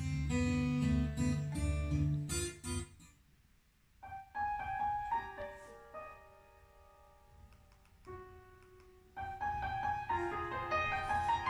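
Recorded piano music played back through Magnat Monitor Supreme 2002 loudspeakers driven by a Cambridge Audio CXA60 amplifier. A full passage with deep bass for the first few seconds, a brief lull, then single held piano notes, filling out again near the end.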